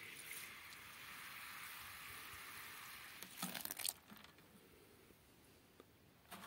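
Water from a garden hose splashing onto a geotextile fabric liner, a steady hiss that stops about three seconds in. A few brief knocks and rustles follow.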